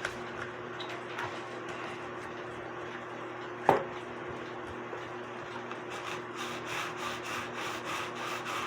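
Cuckoo clock chain being pulled through a scouring pad clamped under a board: a gritty rubbing scrape that turns into a fast run of rasping link-by-link strokes near the end, scouring off rust. One sharp knock comes about four seconds in, over a low steady hum.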